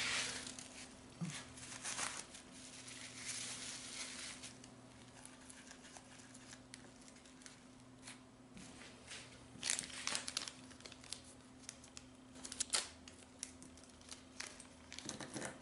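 Plastic packaging crinkling and rustling in the hands, with a few light clicks, as small PC water-block mounting hardware is handled; the crinkling comes in short clusters about two thirds of the way through.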